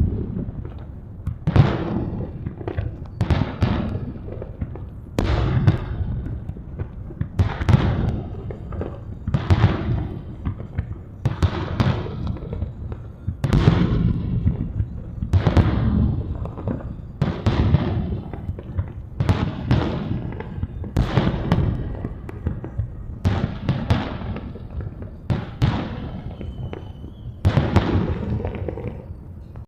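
Aerial firework shells bursting in quick succession, a sharp bang every one to two seconds, each trailing off in a low rolling rumble.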